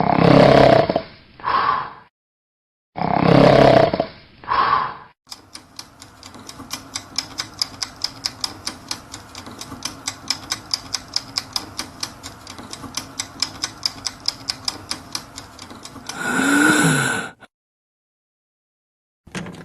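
Cartoon snoring sound effects: two loud, rasping snores, each followed by a shorter one. Then breathing stops and about ten seconds of steady ticking follow, about four ticks a second, ending in a loud snorting gasp as the sleeper chokes awake, the pattern of obstructive sleep apnea.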